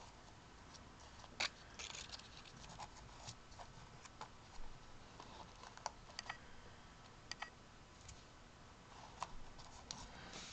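Faint, scattered rustles and light ticks of paper cutouts being handled and laid down on a canvas.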